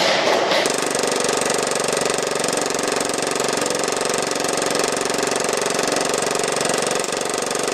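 Action Army AAP-01 airsoft gas blowback pistol firing full auto on compressed air fed through a regulator and hose. It is one long, unbroken burst, a very fast steady rattle of shots and slide cycling.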